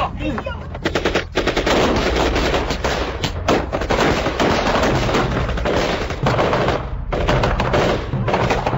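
Sustained rapid gunfire, dense strings of shots with a few brief breaks, over a low steady rumble.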